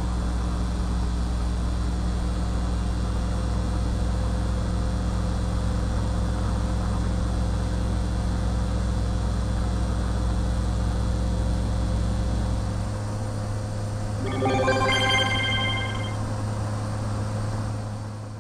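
Electronic sound effects: a steady low hum drops out about two-thirds of the way through, followed by a brief run of high electronic beeps and chirps, then fades.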